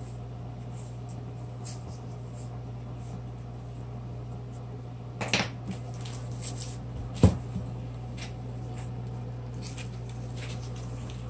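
Coloured pencil scratching on paper over a steady low hum, then a short rustle about five seconds in and a sharp knock about two seconds later as the clipboard is handled.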